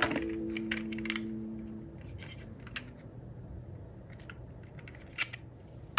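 Die-cast metal toy cars being handled in a cardboard box: a scatter of small clicks and light scrapes as they knock against each other and the cardboard.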